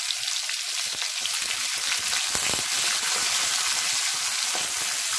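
Sliced onions sizzling in hot oil in a kadai while they are stirred with a wooden spatula: a steady frying hiss.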